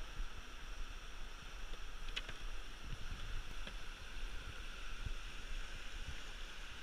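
Whitewater river rapids rushing, a steady hiss, with a few faint clicks about two seconds in.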